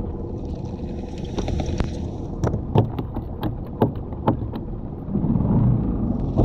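Low rumble of a small skiff underway, its motor, wind and water mixed together, with scattered sharp knocks in the middle. The rumble grows louder about five seconds in.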